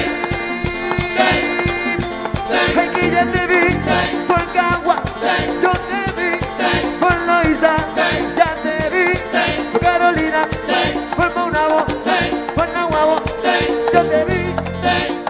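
Live merengue band music with a fast, steady beat.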